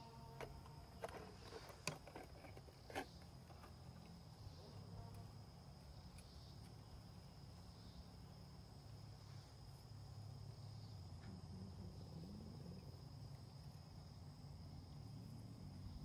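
Faint steady insect drone, a high thin buzz throughout, with a few sharp clicks in the first three seconds from a hard plastic case being handled and opened.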